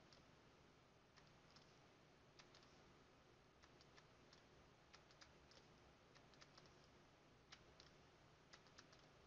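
Faint, irregular clicks and taps of a digital pen stylus on a writing surface as numbers are handwritten, over a low steady background hum.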